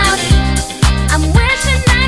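Background pop music with a steady beat, about two beats a second.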